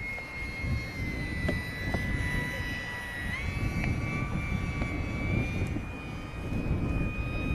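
Electric motor and propeller of an OMP Hobby S720 RC micro plane whining steadily, its pitch stepping up about three seconds in as the throttle changes, over strong wind buffeting the microphone.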